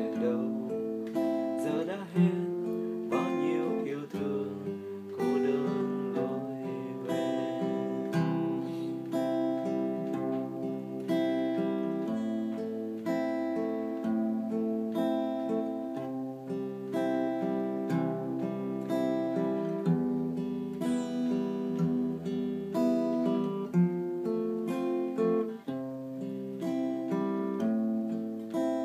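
Steel-string acoustic guitar played fingerstyle: a plucked melody over bass notes that change about every two seconds.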